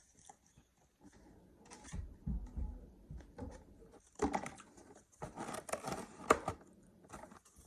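Close-miked eating and handling noises: scattered clicks, a few low thumps about two seconds in, then crackly rustling from about four seconds in that ends in a sharp click, the loudest moment, past six seconds.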